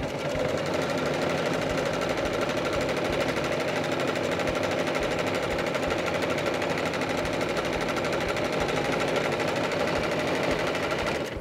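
Domestic sewing machine stitching a seam through layered fabric at a steady, even speed: a rapid, regular needle rhythm that stops right at the end.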